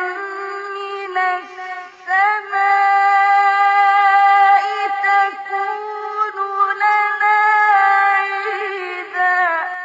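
A male Quran reciter's voice in ornamented mujawwad recitation, drawing out a long high melismatic note. There is a short break and a rising glide about two seconds in, then one long held note with small turns. Near the end it steps down and fades into echo.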